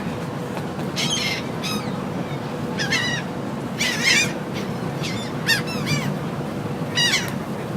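A flock of gulls calling in short bursts of quick, bending cries, about six bursts, the loudest near the middle and near the end, over the steady low hum of the ferry.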